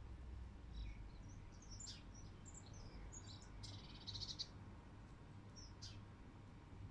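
Wild birds chirping and calling faintly outdoors: scattered short high chirps and quick downward whistles, with a rapid buzzy trill about four seconds in.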